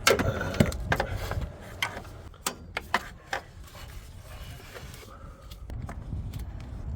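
Metal hand tools clicking and scraping as a new spark plug is tightened with a socket wrench: a scatter of sharp irregular clicks, the loudest in the first second or so, with rubbing in between.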